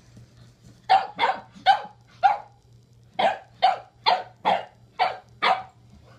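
French bulldog play barks, short and loud. There is a run of four, a brief pause, then a run of six more at about two a second.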